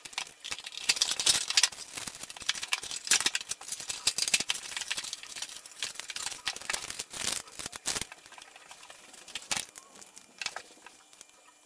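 Cardboard box and plastic packaging being opened and handled: dense rustling and crinkling with many small clicks of plastic parts. It thins out in the last second or so.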